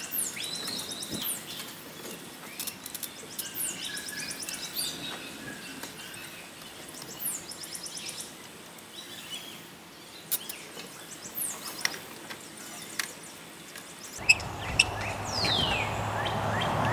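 Songbirds chirping with short high falling calls, and a few sharp knocks. Near the end a rising rushing noise with a low steady hum builds up and becomes the loudest sound.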